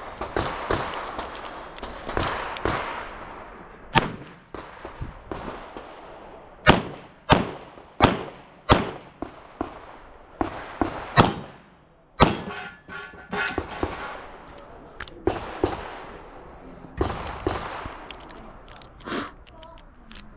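Revolver shots fired in a string during a timed stage, the loudest coming about one every 0.6 to 0.8 seconds through the middle, with quieter pops and crackle between them.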